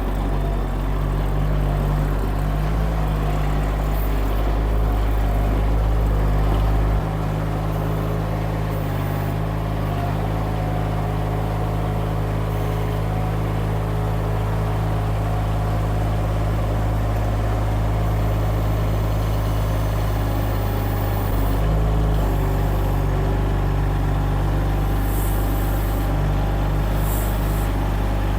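Mini skid steer engine running steadily, its deep low note dropping off about a quarter of the way in and coming back about three quarters of the way through.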